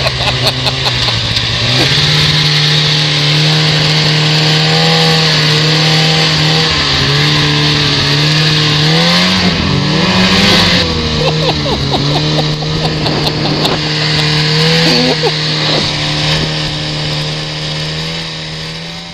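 A motor vehicle engine running steadily under a constant road-and-wind hiss. The engine's pitch steps up and down several times and glides up about halfway through, then everything fades out at the end.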